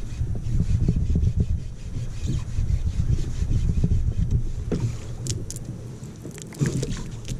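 Shimano Curado baitcasting reel being cranked steadily to bring in a squid on the jig, a low rumbling whir that eases about five seconds in. A few sharp clicks and knocks follow near the end.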